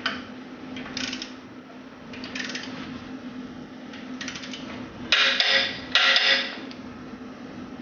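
Socket wrench ratcheting as a cylinder head bolt is tightened: a few short bursts of clicking, the last two louder, about five and six seconds in. A steady low hum runs underneath.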